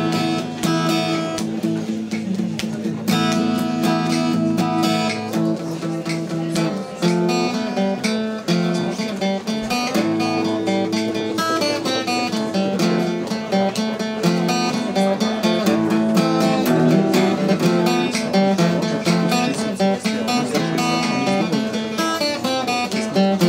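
Acoustic guitar played solo, a continuous instrumental passage of chords and picked notes.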